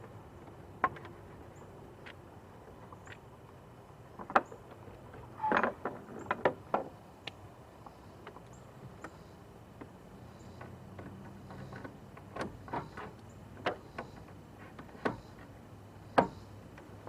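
Irregular clicks, clacks and knocks from hand work on a car engine: a rubber radiator hose being pushed onto its fitting and the hose clamp fastened. The sharpest knocks come about a second in, around four and a half seconds in, a cluster around six seconds, and again near the end, over a faint low hum.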